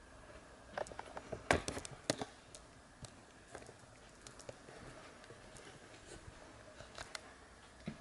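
Quiet clicks and knocks of someone creeping through a dark room: a quick cluster of sharp taps about a second or two in, then a few scattered soft ones.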